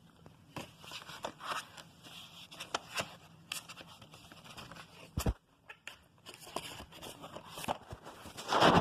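DVD case and its paper episode guide being handled: scattered plastic clicks, rustling and scraping, with a thump about five seconds in and a louder rustle near the end.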